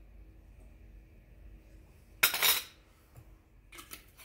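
A brief clatter of kitchen containers being handled and set down about two seconds in, followed by a few light knocks near the end, as a small plastic measuring cup and a liqueur bottle are put down and picked up.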